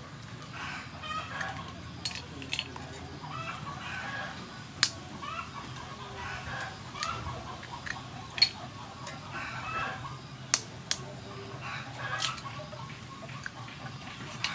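Chickens clucking on and off in the background, with several sharp taps as eggshells are cracked with a knife over a steel bowl.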